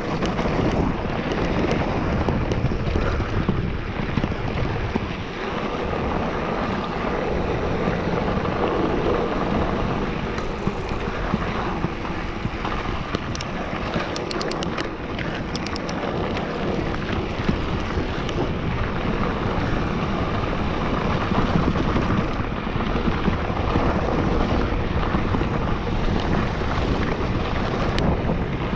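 Wind rushing over an action camera's microphone as an electric mountain bike rolls fast down a dirt and gravel trail, with the tyres crunching over the loose surface and a short run of small clicks about halfway through.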